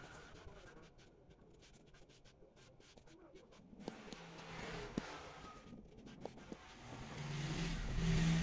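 Sheet of paper rustling and sliding under fingers as it is folded and creased, with a few small sharp ticks from the paper. A low steady hum swells near the end and is the loudest sound.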